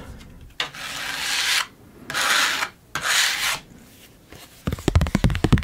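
Tarot card rubbed and slid over a surface close to the microphone in three slow strokes, then a rapid run of small clicks and taps near the end.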